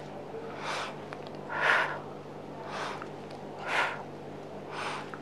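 A woman breathing hard and in rhythm under exercise effort, about one breath a second, with stronger breaths every two seconds as she works through repetitions.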